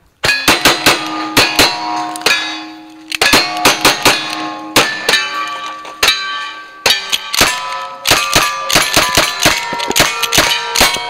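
Rapid gunfire at steel targets, several shots a second. Each shot is followed by the ring of a hit steel plate, with short pauses between strings.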